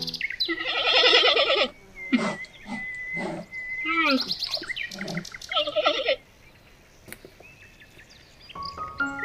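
Animal calls: a loud wavering call about half a second in, then a string of shorter calls over a thin steady whistling tone, dying away about six seconds in.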